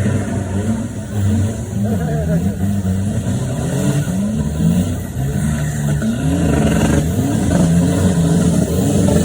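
Off-road 4x4 truck engine revving up and down repeatedly, its pitch rising and falling in quick surges.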